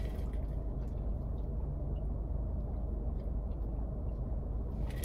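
Steady low hum inside a parked car's cabin, even in level throughout, with a few faint ticks.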